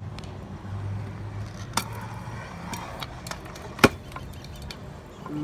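A few sharp knocks or clacks, the loudest about two thirds of the way through, over a low steady hum.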